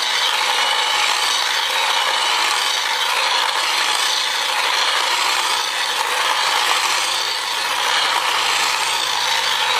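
Miss & Chief Mini Racing toy RC car's small electric motor and plastic gears running, a steady, gritty mechanical whir as the car drives.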